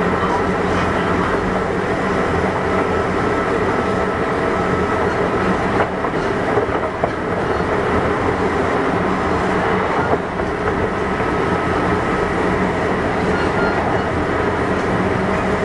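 Kintetsu 6200 series electric commuter train running along the line: steady wheel and motor noise with a faint hum, and a few sharp clicks over rail joints about six and ten seconds in.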